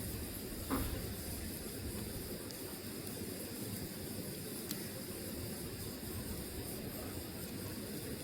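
Burning logs hissing steadily, with a few sharp crackles and one louder pop just under a second in.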